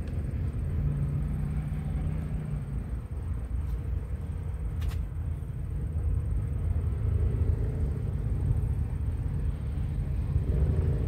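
Low, steady outdoor background rumble with no distinct event, and one faint click about five seconds in.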